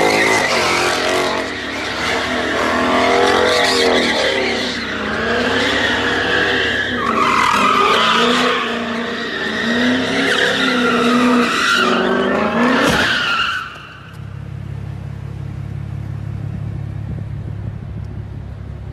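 A car's engine revving hard with tyres squealing as it drifts across the parking deck, the pitch rising and falling as the revs change. About 14 seconds in, the squeal and revving stop abruptly, leaving a lower, steady engine rumble.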